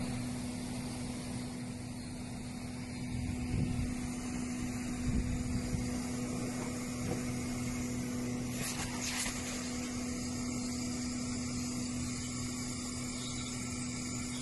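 Rear-loading garbage truck running with a steady low drone. There are a few light knocks a few seconds in and a brief hiss-like noise about nine seconds in.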